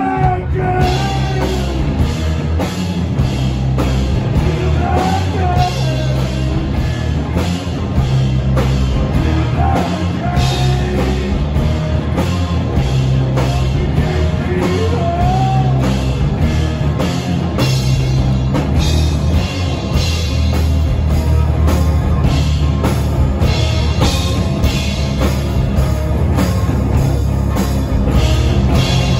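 Live rock band playing loud with a drum kit, bass guitar and guitars over a steady driving beat. A few sliding high notes ride over the top in the first half.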